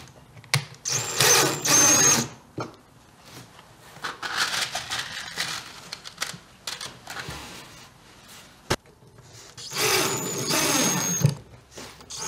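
Cordless DeWalt drill driving small screws through a metal hinge into a plywood lid, in two short runs of about a second each with a steady high motor whine. A single sharp click comes between them.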